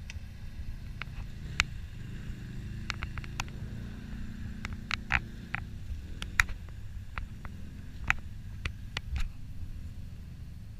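Quad bike engine running under load, low and distant, as it climbs a muddy bank with its wheels spinning and throwing mud. A scatter of sharp clicks sounds irregularly over it.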